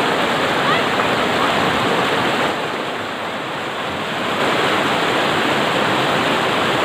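Fast shallow river rushing over rocks through white-water rapids, a steady rushing noise that drops a little in level for a couple of seconds in the middle.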